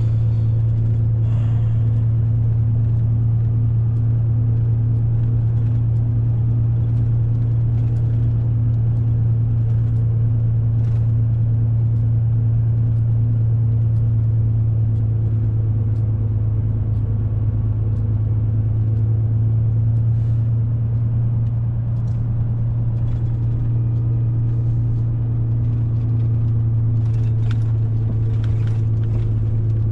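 Diesel truck engine running steadily while driving, a continuous low drone, with scattered short clicks and rattles that come more often near the end.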